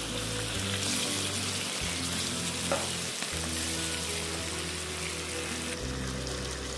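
Chicken drumsticks frying in oil with chopped garlic and green chillies in a wok, a steady sizzle, stirred with a wooden spatula. There is one brief knock about two and a half seconds in. Low background music plays underneath.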